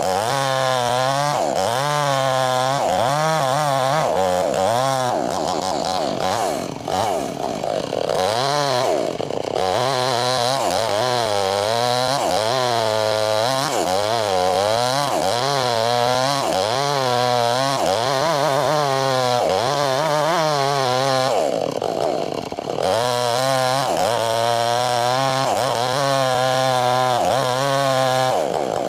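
Two-stroke chainsaw running at high revs, ripping lengthwise through a log. The engine pitch rises and falls about once a second as it works in the cut, easing off briefly twice, at about 7 and 22 seconds in.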